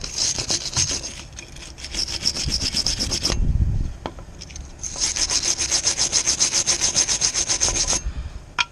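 Wire brush scrubbing back and forth over the rusty threads of a seized steel bolt, in quick scratchy strokes. It comes in three spells, with a short pause about a second in and another around four seconds in. The brushing clears rust and crud from the threads so it won't bind up inside the nut.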